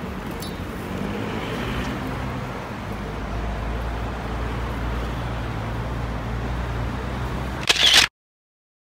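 City street traffic: cars and buses running past, a steady low engine hum that grows heavier a few seconds in. Near the end a short loud burst of noise, then the sound cuts off abruptly to silence.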